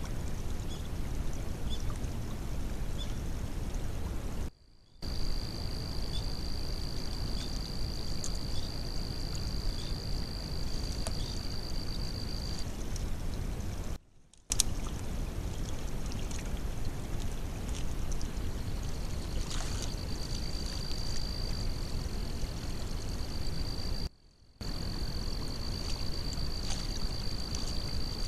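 Steady wash of water running at a beaver dam, heard through a trail camera's microphone, broken three times by short silences where separate camera clips join. A thin, steady high whine sounds through parts of it.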